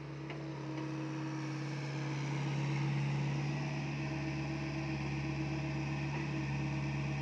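SDLG mini excavator's diesel engine running steadily under load as the boom and bucket work, a constant drone that grows a little louder about two seconds in.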